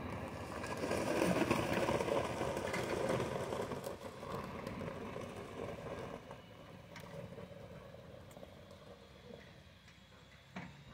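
Pickup truck engine running under load as it tows a shed on a trailer. The sound is loudest in the first few seconds and fades as the truck pulls away, with a short knock near the end.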